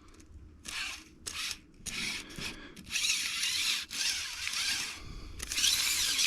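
Steel blade of a partly dismantled Milwaukee AutoLock tape measure being drawn out and slid back over and over, six or so short scraping strokes, as its repaired auto-lock is tested.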